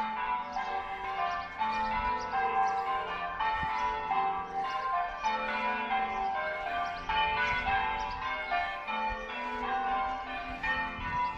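Church bells ringing one after another in quick, steady succession, several strikes a second, their tones overlapping and ringing on.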